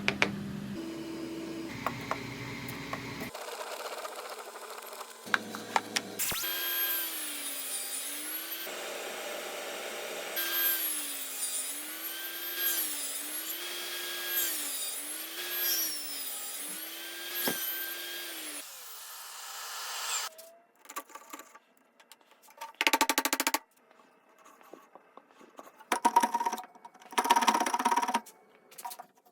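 Power saw cutting wood for a bridle joint, with a run of repeated cuts; the tone sags under each cut and recovers, about every two seconds. Several short, loud bursts follow near the end.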